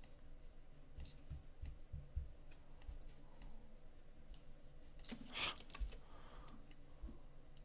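Faint computer mouse clicks, scattered and irregular, with one brief louder hiss about five seconds in.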